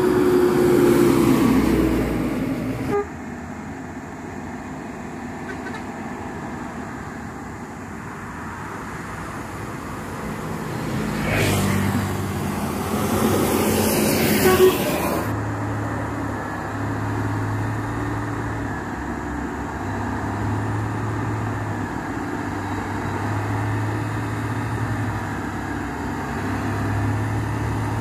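Heavy diesel trucks and a bus passing on a road. At the start a horn sounds with one steady tone that sags slightly as a truck goes by. A bus passes close, with a rush of noise from about 11 to 15 seconds. After that, a line of loaded trucks approaches with low engine notes that rise and fall every second or two.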